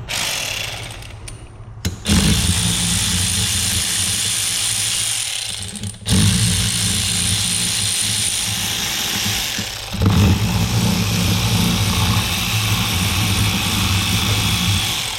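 Power tool running in four long runs of a few seconds each, with short breaks about two, six and ten seconds in: a steady hiss over a low hum.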